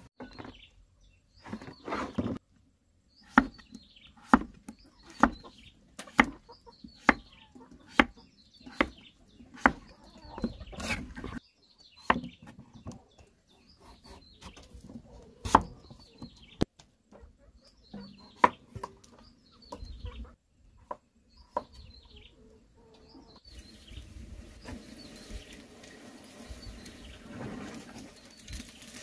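Knife strikes on a wooden cutting board, about one a second, while a squash is chopped, with repeated high bird chirps behind them. Near the end comes a steady pour of liquid into an aluminium pot.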